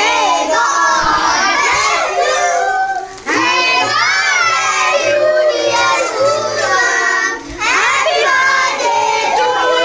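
A group of children's voices shouting and singing together, loud and overlapping, with two brief breaks, about three seconds in and again about seven and a half seconds in.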